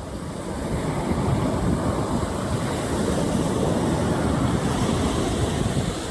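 Surf washing on the shore with wind buffeting the microphone: a steady rumbling wash that grows a little louder about a second in.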